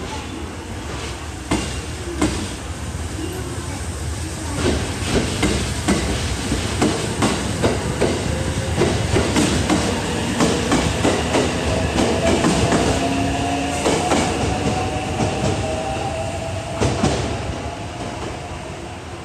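A JR West 683 series 2000-subseries electric train pulling out and gathering speed. Its wheels click over the rail joints in a quickening rhythm, with a slowly rising whine from its traction motors.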